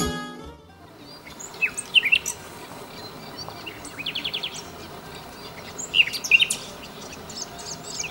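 Common nightingale singing: short phrases of sharp whistled notes and quick runs of rapidly repeated notes, with pauses of a second or two between phrases.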